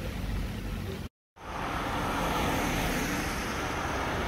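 Road traffic: vehicle engines and tyres rumbling steadily. About a second in the sound cuts out completely for a moment, then returns as a steady hiss of tyres on asphalt as a car drives toward the microphone.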